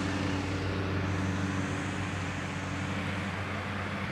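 Steady drone of a distant motor, an even hum with its overtones that holds unchanged throughout.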